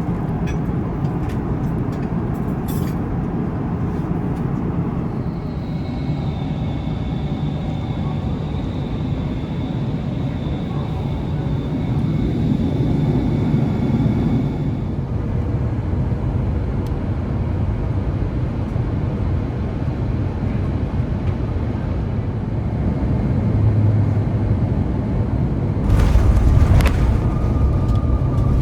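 Steady low vehicle rumble, with a thin high tone over part of it and a sudden loud rushing burst near the end, after which the rumble is heavier.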